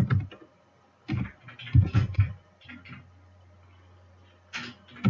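A few short, irregular scratching and knocking noises, loudest around two seconds in, over a steady low hum.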